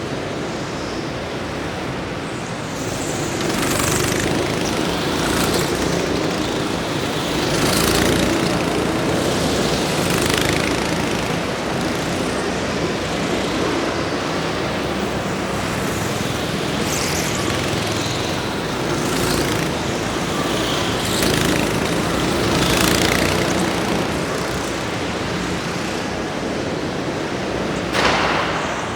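Racing vehicles running at a motorsport event: a steady engine din with a series of brief louder swells as vehicles pass, the sharpest near the end.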